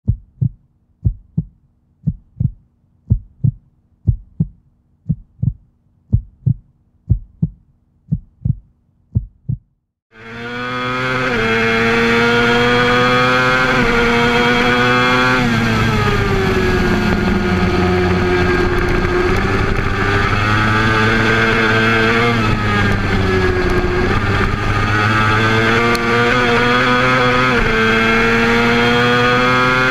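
Evenly spaced low thumps, about two a second, then about ten seconds in a Honda race motorcycle's engine starts up loud, heard from a camera mounted on the bike. Its pitch climbs as it revs up through the gears and drops away under braking, twice.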